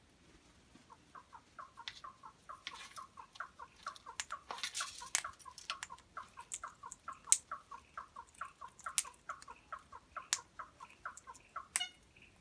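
A wattlebird calling: a long, even run of short, harsh notes, about four or five a second, stopping just before the end. Sharp clicks are scattered through it.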